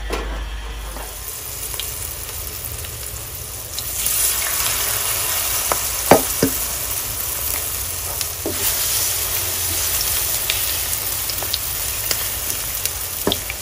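Shrimp-and-batter fritters sizzling in hot oil in a frying pan. The sizzle grows louder about four seconds in, with a few sharp clicks of a metal spoon against the pan.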